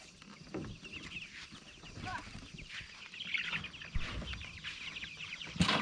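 A flock of meat chickens chirping over and over, many short high calls overlapping, with a sharp knock near the end.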